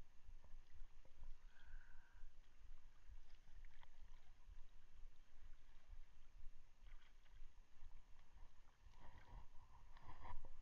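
Faint low rumble of wind and sea water on the camera microphone, with a few soft clicks and rustles of handling near the end.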